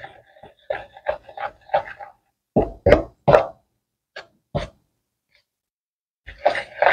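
A metal spoon stirring flour, eggs and oil in a plastic bowl for bread dough: a run of short scrapes and knocks against the bowl, with a pause of about a second and a half near the end.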